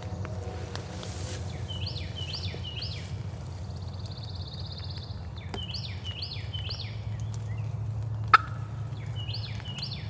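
A songbird sings a quick three-note whistled phrase, heard three times, with a thin high trill between the first two phrases. A single sharp click comes about eight seconds in, over a steady low rumble.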